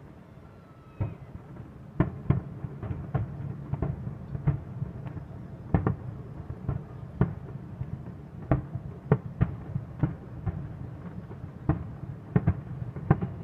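Distant fireworks shells bursting over the Eiffel Tower: a first bang about a second in, then a quick, irregular run of sharp bangs, several a second at times, over a low rumble.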